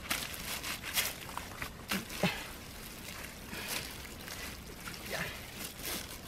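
Hands squelching and pulling apart clumps of wet mud and weed on a plastic mesh net, in irregular wet bursts with the net rustling.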